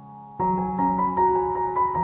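Background piano music. A chord dies away, then about half a second in new notes enter and a slow melody moves over held low notes.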